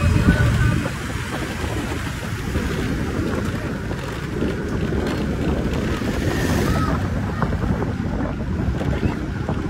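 Wind buffeting the microphone over the steady low rumble of a moving vehicle, as the camera travels along the road.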